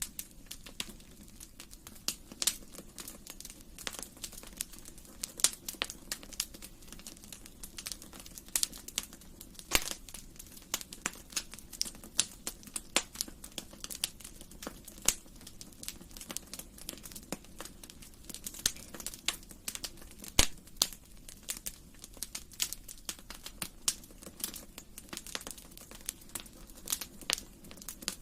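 Wood fire crackling: irregular sharp pops and snaps over a low steady hiss, with a few louder pops.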